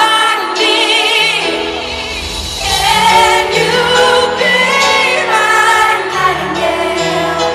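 A woman singing a slow pop ballad live over band accompaniment, her long held notes wavering with vibrato above a stepping bass line, in a large arena.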